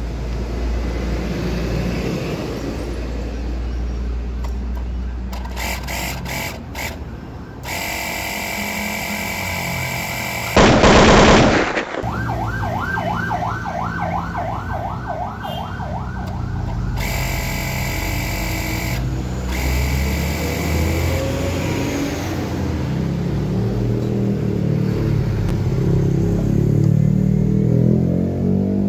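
Small 12-volt electric mini air compressor switching on and running steadily while it pumps up a bicycle tyre. A very loud burst of about a second breaks in partway through.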